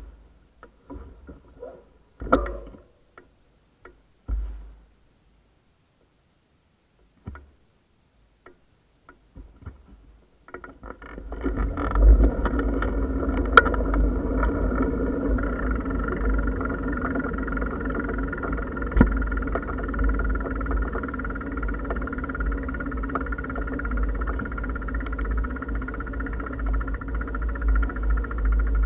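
A few scattered knocks and clicks with near silence between, then, about ten seconds in, a bicycle starts rolling. A steady rumble of tyre and frame vibration with a low hum and some rattles follows.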